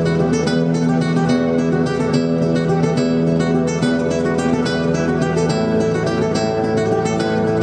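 Nylon-string classical guitar played with the fingers: a quick run of plucked notes over sustained lower notes that keep ringing.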